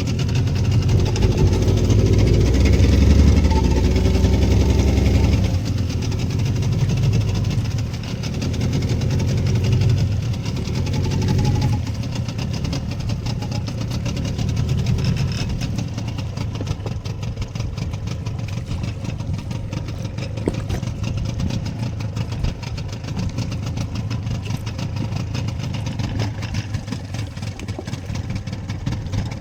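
Fishing boat's engine running, louder for the first several seconds, then steady.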